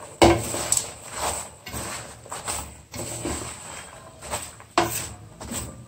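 Popped popcorn being stirred and turned over with a wooden spatula in a pan to coat it in caramel: irregular rustling and scraping strokes, roughly one a second.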